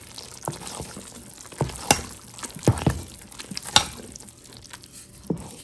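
A utensil stirring thick, yeast-risen rice-flour batter in a stainless steel bowl: wet squelching and bubbly popping, with irregular sharp clicks and taps.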